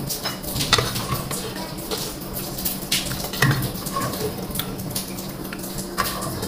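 Kitchen ladle clinking against a pressure cooker and plate, with boiled pinhão (Brazilian pine nut) seeds knocking together as they are served. The clicks and knocks come irregularly.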